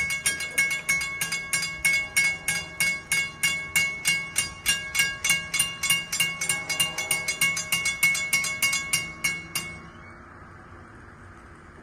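Railroad crossing warning bell ringing rapidly, about four strikes a second, while the crossing gates lower. It stops suddenly near the end, once the gates are fully down.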